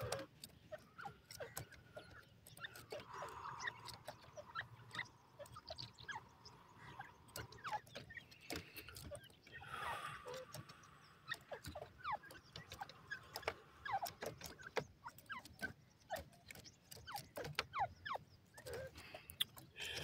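Grey francolins calling softly: scattered short chirps, many falling in pitch, with faint clicks in between.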